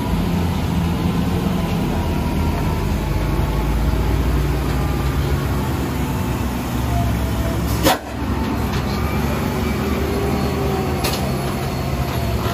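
Diesel engine of a loaded Mitsubishi truck running steadily at low speed as it pulls through a hairpin bend. A single sharp burst cuts in about eight seconds in, with a weaker one a few seconds later.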